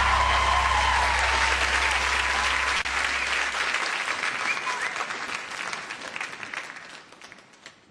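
Large studio audience applauding, the applause dying away over the last few seconds to near silence.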